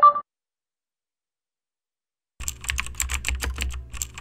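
Computer-keyboard typing sound effect: a fast run of key clicks, about ten a second, starting a little past halfway and lasting about two seconds. A short electronic tone sounds at the very start.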